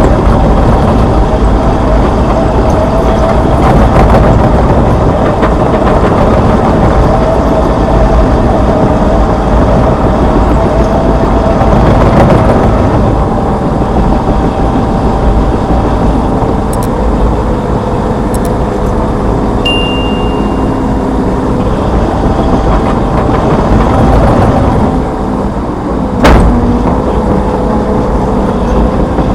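Hitachi Zaxis 210F excavator's four-cylinder turbocharged diesel engine running steadily under working load, with a few held tones that change pitch as it works. A single sharp clank comes near the end.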